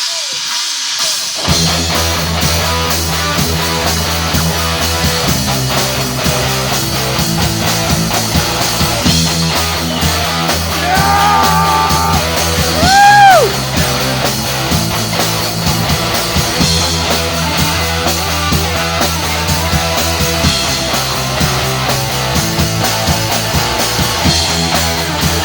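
Rock band music with drums, bass and electric guitar starting about a second and a half in, the instrumental intro to a punk rock song before the vocals. About eleven seconds in a high note is held, and shortly after, a pitch slides up and falls away at the loudest moment.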